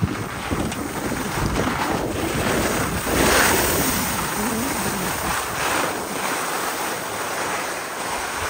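Wind buffeting the microphone: a loud, rushing roar with no clear tone, swelling to its loudest a little over three seconds in.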